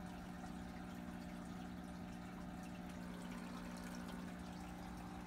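Aquarium filter running: water trickling into the tank over a steady low hum.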